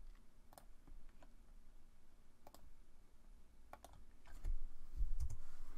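Computer mouse clicking at irregular intervals, single clicks with a quick pair near the end, as spline points are placed one by one. A few dull low thumps come in the last second and a half.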